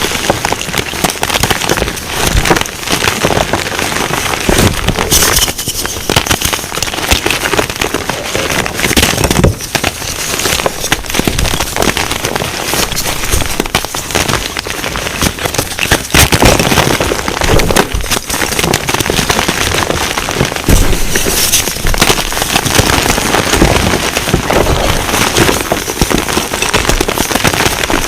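Two plain gym chalk blocks being crushed together: a loud, continuous crunching and crackling as the chalk breaks and crumbles into powder.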